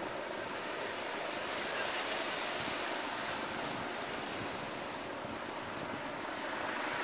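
Small waves washing onto a rocky shore, a steady hiss of surf.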